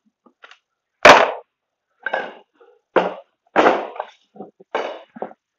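Metal tools and parts being set down and moved about on a wooden workbench: a run of about six sharp clanks and knocks, the loudest about a second in.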